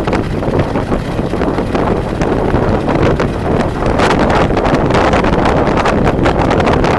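Wind buffeting the microphone of a camera on a moving vehicle, a loud, constant rush broken by gusty thumps, with the vehicle's road rumble underneath.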